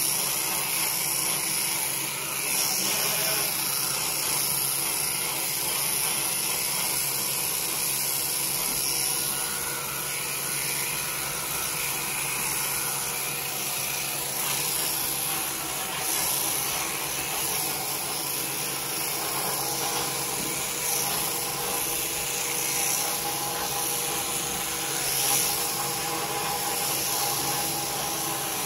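Electric sheep-shearing handpiece, driven by a hanging drive cable, running steadily as it shears through a sheep's fleece.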